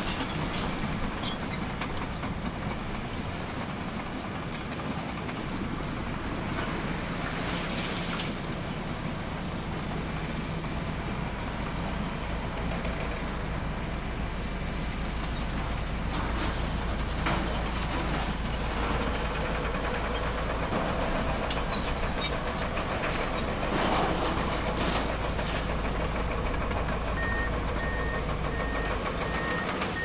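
Komatsu D85EX crawler bulldozer working, its diesel engine running steadily while the steel tracks clank and rattle. Near the end a reversing alarm starts beeping, about twice a second.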